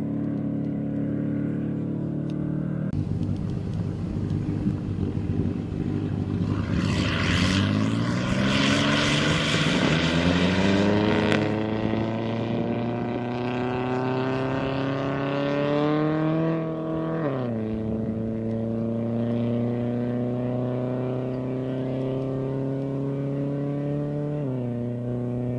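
Land-speed race car engine under hard acceleration. After a few steady seconds the engine note climbs for about ten seconds with a harsh roar, drops sharply at an upshift, climbs slowly again and drops at a second shift near the end.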